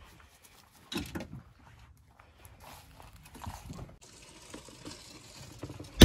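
Faint footsteps, shuffling and small knocks of someone moving about inside a camper van, with a louder thump about a second in.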